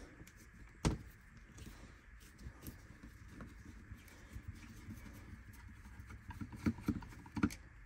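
Faint clicks and scrapes of a screwdriver working at the housing screws of a cordless impact driver's plastic shell, with a sharper click about a second in and a few more near the end.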